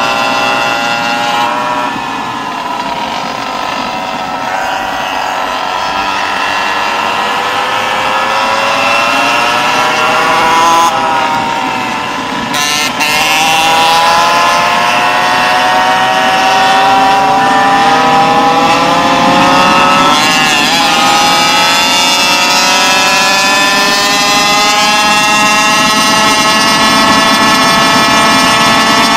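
Tuned CY47 two-stroke Goped scooter engine with an expansion-chamber pipe, running hard at riding speed. Its pitch sinks and climbs with the throttle, dips briefly about twelve seconds in, drops again near twenty seconds, then holds fairly steady.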